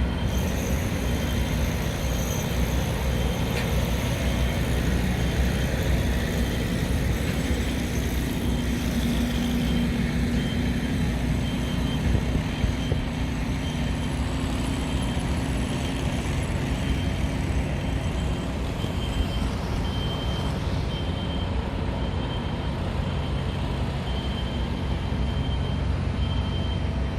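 Steady road traffic noise from passing vehicles, a continuous low din with no single event standing out.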